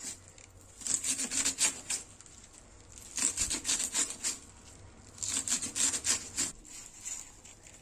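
Kitchen knife finely chopping spring onions on a wooden cutting board: three runs of quick strokes, each lasting about a second, with short pauses between them.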